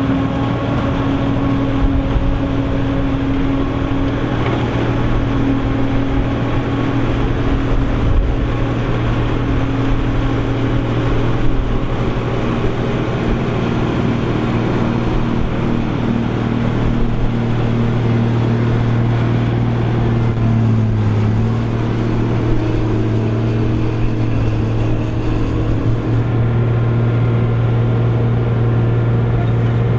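Krone BigX 700 self-propelled forage harvester running steadily under load while chopping corn, a loud constant engine drone; the note dips briefly about two-thirds of the way through.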